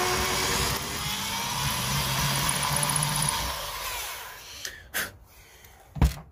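Electric drill in a drill-press stand running as it bores a twist-eye hole into a timber lure body, then winding down a little after three seconds in. A few knocks follow, and a loud thump near the end as the drill is set down on the bench.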